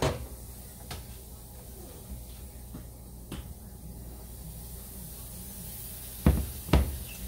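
Over-the-range microwave oven being handled: a sharp click at the start as it is switched off by hand, a few faint clicks, then two thumps near the end as its door is pulled open.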